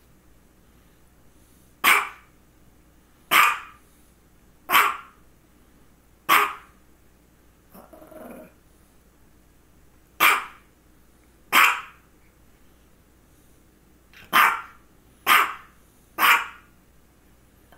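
Small dog barking: nine single sharp barks, one every second or two, with a longer gap in the middle. About eight seconds in there is one softer, lower sound.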